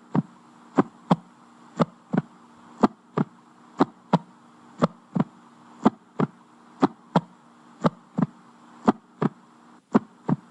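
Heartbeat sound effect: paired lub-dub thumps repeating about once a second, over a faint steady hum.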